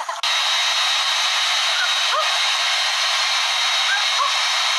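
Handheld hair dryer running steadily: an even rushing hiss with a thin high whine in it, cutting in abruptly right at the start.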